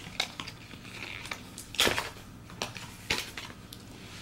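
Plastic packaging on a dog chew being handled and torn open: a string of sharp crackles and snaps, the loudest just under two seconds in.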